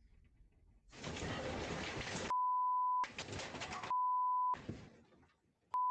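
Loud rattling and rumbling of a house shaking in an earthquake, heard through a Ring security camera's microphone, starting about a second in and fading near the end. It is broken three times by a steady 1 kHz censor bleep.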